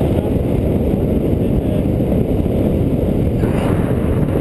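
Wind from the paraglider's flight buffeting an action camera's microphone: a steady low rumble, with a brief brighter gust about three and a half seconds in.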